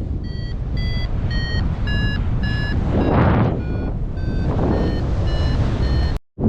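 Paragliding variometer beeping about twice a second, its pitch shifting from beep to beep, the signal of the wing climbing in lift. Heavy wind rushes over the microphone throughout, and the sound cuts out completely for a moment near the end.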